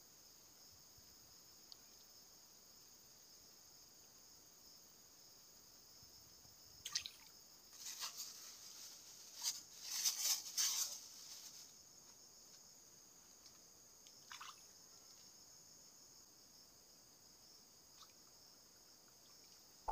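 Faint, steady high chirring of insects, with a cluster of short rustling and dripping handling noises between about seven and eleven seconds in while the hook is rebaited with oat-flake bait by hand, and a couple of single light ticks later.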